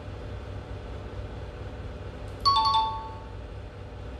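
Educational tablet app's two-note falling chime, a ding-dong a little past halfway through, as the answer 1 drops into the addition sum: the app's correct-answer signal. A steady low hum runs underneath.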